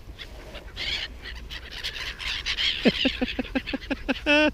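Seagulls calling: a high squealing chorus, then a rapid series of short calls about five a second, ending in a louder, longer wavering call near the end.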